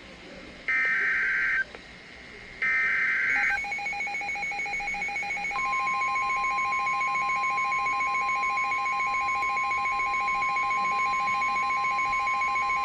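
Emergency Alert System SAME header on NOAA Weather Radio: two short bursts of harsh warbling digital data tones, the encoded start of a new alert. Then a rapidly pulsing electronic beep, joined a couple of seconds later by a steady high alarm tone that announces the warning.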